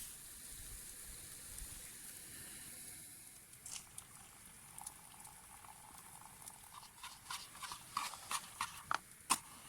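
A series of small sharp clicks and taps from things being handled, sparse at first and then more frequent near the end, with the loudest click close to the end. A faint steady hiss lies underneath.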